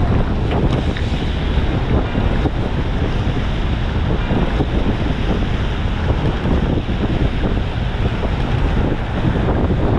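Strong wind buffeting the microphone in a steady rumble, with waves washing against the rocks of a seawall.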